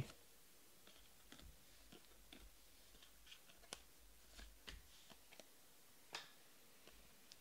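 Near silence broken by faint, irregular clicks and light slaps of stiff baseball trading cards being flipped one by one through a stack held in the hands.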